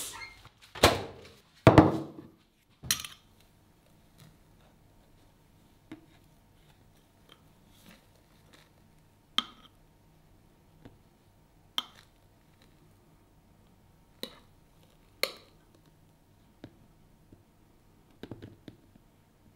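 Kitchen handling noises: a few loud knocks and clatters in the first three seconds, then a metal spoon clicking against a bowl of sticky melted marshmallow now and then as it is scooped out, with soft scraping between the clicks.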